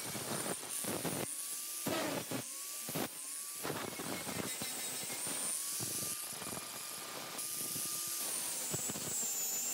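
Handheld angle grinder running against the rusty steel of an old truck body, grinding it clean. Its motor whine sags and climbs as the wheel is pressed on and eased off, over a harsh scraping hiss.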